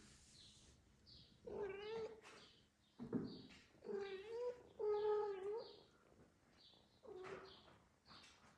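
A cat meowing about four times, with two longer, louder meows in the middle, and a soft thump about three seconds in.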